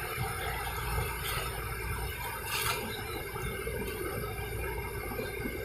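Steady low outdoor rumble, with a couple of light clicks about one second and two and a half seconds in.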